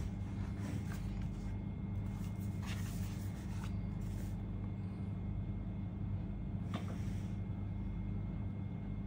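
Steady low background hum, with a couple of faint, brief knocks and scrapes as a laptop's aluminium case is handled and turned over on a desk, about a third of the way in and again past the middle.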